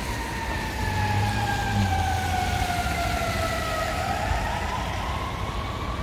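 Emergency vehicle siren in a slow wail, its pitch falling for about four seconds and then rising again, over steady city street traffic noise.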